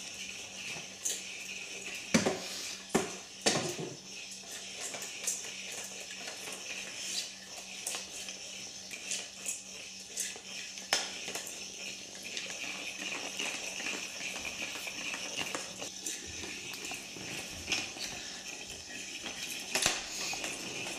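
Battery-powered Weazel Ball pet toy whirring as it rolls across a hardwood floor, with scattered knocks and clatters, the sharpest a little after two seconds and around three and a half seconds in.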